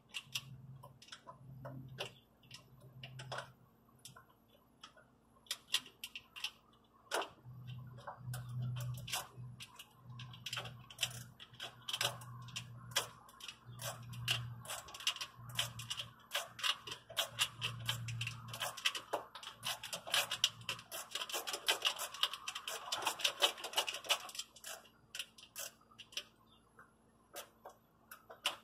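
Metal clicking of a wrench working a stiff nut off a battery cable terminal: runs of sharp ticks with pauses between, quickening into a fast, dense run about three-quarters of the way through.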